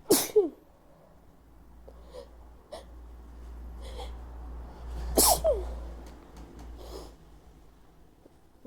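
A woman sneezing twice, about five seconds apart, each sneeze sudden and loud with a cry that drops in pitch, with quieter breathing in between.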